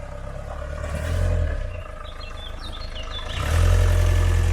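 Old Land Rover Series 2B engine running as the vehicle drives, a steady low rumble that swells twice, with a few short high chirps midway.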